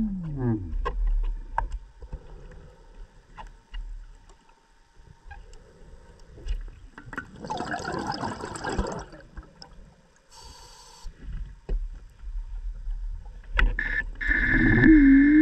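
Underwater: a DPV (diver's scooter) motor whines down to a stop at the start. Scattered clicks and knocks follow, with a short bubbling rush about eight seconds in and a brief hiss a couple of seconds later. Near the end the motor whines back up to speed.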